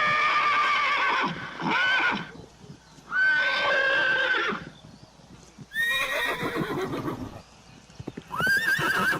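Horses neighing: a series of five whinnies, each a loud wavering call, with short pauses between them.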